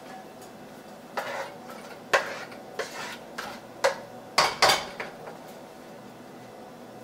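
Kitchen dishes and utensils clinking and clattering: a run of about eight sharp knocks over about four seconds, the loudest two close together near the end of the run.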